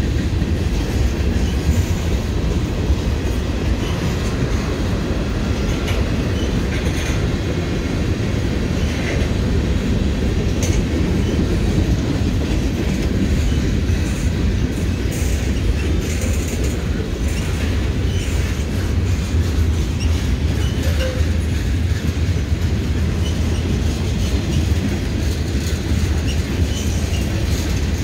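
Freight train of tank cars and boxcars rolling past close by: a steady rumble of steel wheels on the rails, with faint brief high squeals here and there.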